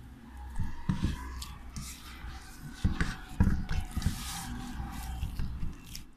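Hands kneading soft dough in a stainless-steel bowl, greased with ghee: irregular dull thumps and rubbing as the dough is pressed and turned, with a few light knocks against the bowl.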